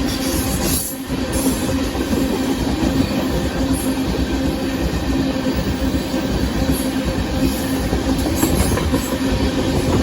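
Freight cars of a Union Pacific sand train rolling steadily past, with the wheels rumbling and clattering on the rails and a steady tone underneath.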